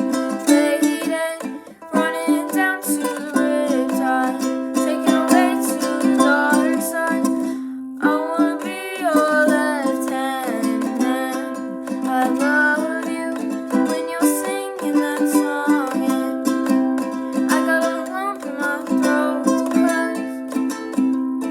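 Ukulele strummed in steady chords, with a voice singing along; the playing breaks off briefly about eight seconds in and then resumes.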